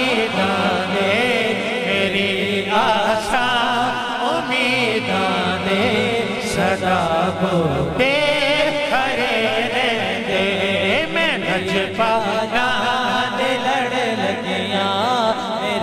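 Many men's voices chanting a Punjabi devotional refrain together in a naat at an urs: the crowd calls out the line after the reciter.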